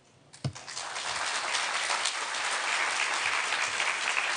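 Audience applauding, starting about half a second in with a soft knock and then holding steady.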